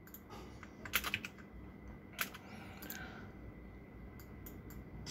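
A handful of separate clicks from a computer keyboard and mouse, as text is selected, copied and pasted.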